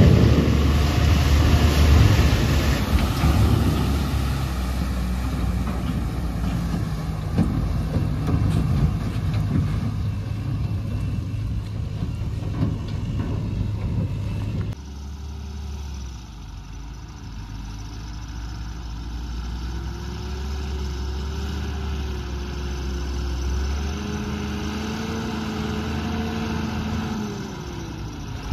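Tata 2518 tipper truck's diesel engine pulling through a flooded mud pond, with water splashing around the wheels, growing fainter as the truck moves away. About halfway through the sound changes abruptly to a heavy diesel engine running close by, its pitch wandering slowly up and down.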